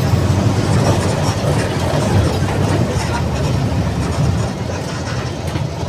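Mercedes-Benz OF-1722M bus's diesel engine running with a steady low rumble, easing off slightly near the end.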